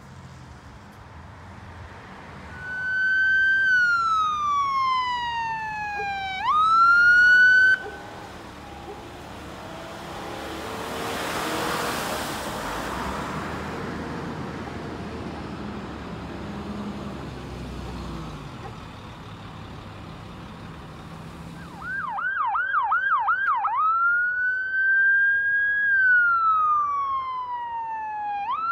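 Ambulance sirens. First a wail slides slowly down in pitch and snaps quickly back up. Then there are several seconds of passing-vehicle noise, and near the end a fast yelp of about four sweeps a second switches to a slow wail.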